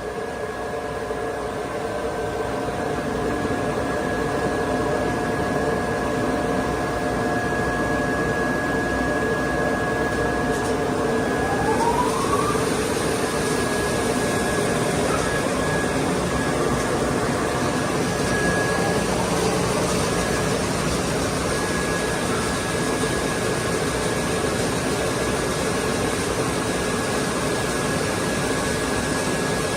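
A 52-inch wide belt sanding and rotary edge-rounding machine for metal running, its motors, sanding belts and vacuum hold-down giving a steady hum with several held whines. A short rising whine comes in about twelve seconds in.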